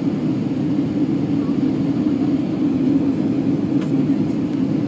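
Airbus A320 jet engine and rushing airflow heard inside the passenger cabin on the approach to landing: a steady drone with a low hum running through it.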